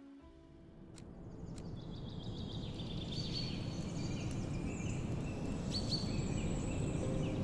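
Outdoor ambience fading in from near silence: a steady low rumble, joined about two seconds in by many short, high chirps. Two faint ticks come about a second in.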